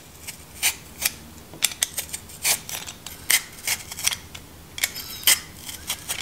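A handheld vegetable peeler shaving thin slices off a radish: a dozen or so short crisp scraping strokes, roughly two a second.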